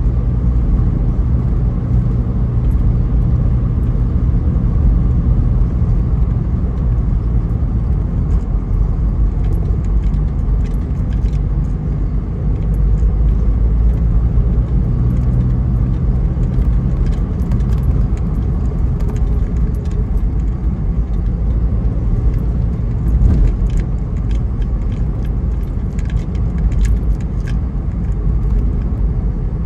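Car driving along at speed, a steady low rumble of engine and tyre noise heard from inside the cabin. Light rattles and clicks come and go from about eight seconds in.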